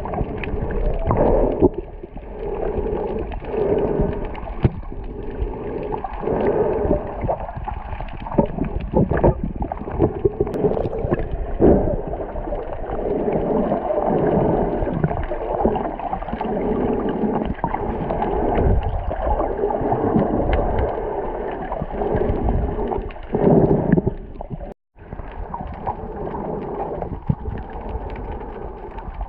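Muffled underwater sound picked up through a camera's waterproof housing: a dull wash of water with gurgling bubbles and shifting swells, with no high end. It cuts out for a moment about 25 seconds in.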